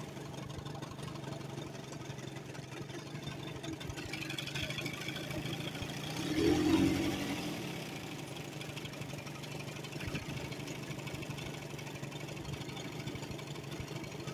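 Outboard motor idling steadily, with a brief louder sound about halfway through.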